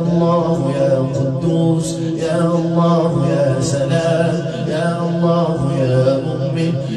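A man chanting an Arabic supplication in a slow, melodic, drawn-out voice over a steady low drone.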